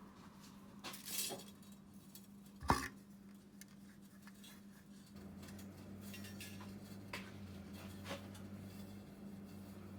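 A few light clinks and one sharp knock about three seconds in, from small hard objects being handled, over a steady low hum.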